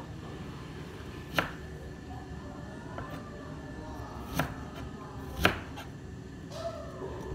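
A kitchen knife chopping on a plastic cutting board, making three sharp knocks a few seconds apart, the last one loudest, over a steady background hum.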